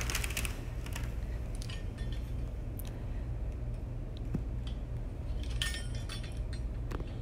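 Pizza cutter wheel rolling through pie crust on parchment paper: soft scraping strokes with small clicks from the tool, over a steady low hum.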